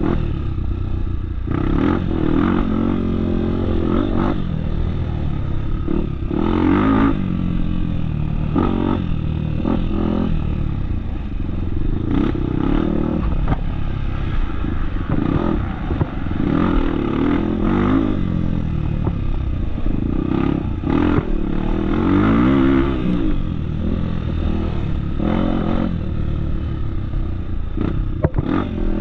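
Off-road trail motorcycle engine running while riding, its note rising and falling over and over as the throttle opens and closes, with clattering knocks throughout.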